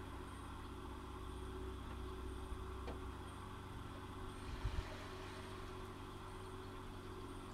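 Steady low mechanical hum of evenly spaced tones, like a running motor, that drops away near the end, with a couple of brief low thumps about four and a half seconds in.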